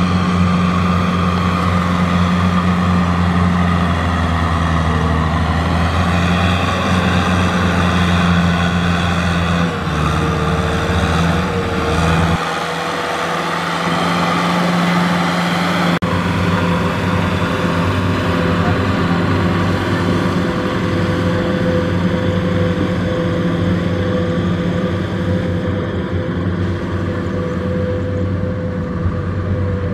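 Kubota M6040SU tractor's four-cylinder diesel engine running steadily under load as it pulls a trailer of rice sacks through mud, its note shifting between about ten and thirteen seconds in.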